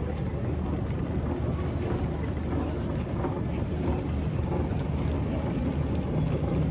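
Steady low rumbling hum of an airport terminal's background noise.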